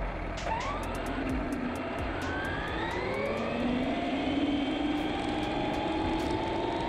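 Traxxas Rustler 4x4 VXL RC truck accelerating: its brushless electric motor and geartrain whine, rising steadily in pitch from about half a second in as the truck picks up speed, over the rush of its tyres on asphalt, with scattered sharp ticks.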